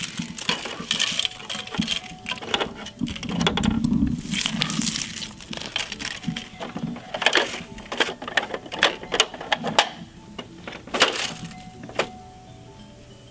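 Dry leaves crackling and crunching as they are grabbed by hand and stuffed into the rear hopper of a plastic Bruder toy recycling truck. Irregular sharp clicks and knocks of hard plastic run through it, with a denser spell of crackling about three to five seconds in.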